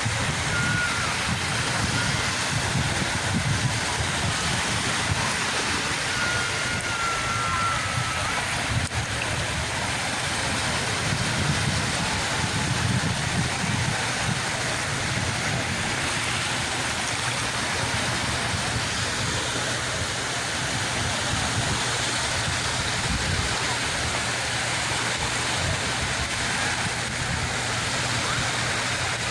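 Sea waves washing onto the shore in a steady, unbroken surf.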